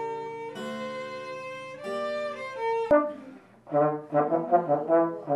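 Violin playing long held notes, then, after an abrupt cut about three seconds in, a trombone playing a quick series of short notes.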